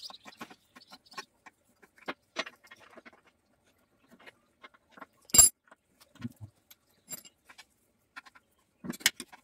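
Hand tools working on a small air-cooled walk-behind engine: scattered light metallic clicks and taps, with one sharp, loud clank a little past halfway.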